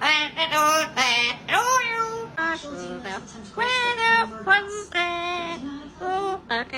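A parrot vocalizing in a rapid run of short pitched calls and whistles, many gliding up and then holding.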